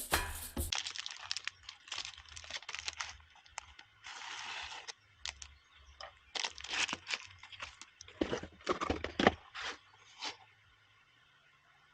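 Irregular crinkling, crunching and rustling handling noises, with a short tearing or hissing sound about four seconds in; they stop near the end.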